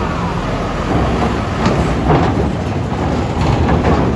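Heavy vehicles' diesel engines rumbling loudly, with a few sharp knocks about two seconds in and again near the end.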